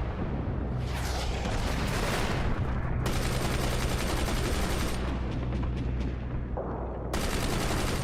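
Dramatised battle sound: bursts of gunfire over a steady low rumble, switching abruptly several times from one clip to the next.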